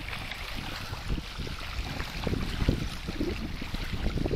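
Wind buffeting the microphone with an uneven low rumble, over a steady wash of small waves lapping at the shore.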